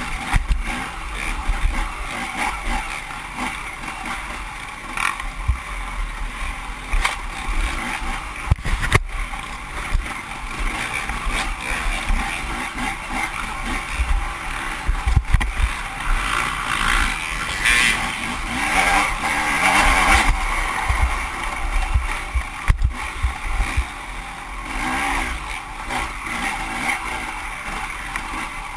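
Off-road dirt bike engine running hard through a trail race lap, its note swelling and easing with the throttle, with repeated low thumps from the rough ground and wind on the microphone.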